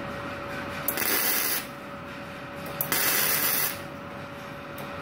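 Gasless flux-core MIG welding arc crackling in two short bursts, each under a second, about a second apart: thin hollow steel being stitch-welded in stages so it does not burn through. A steady hum runs underneath.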